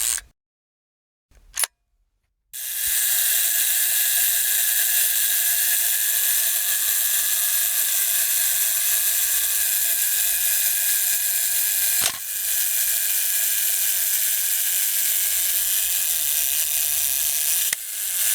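Old camera mechanism: a short click, then a long, steady mechanical whir from the camera's motor, broken by a sharp click partway through, with a brief change just before it stops near the end.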